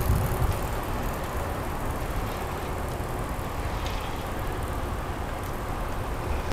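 Steady low rumble of outdoor city background noise.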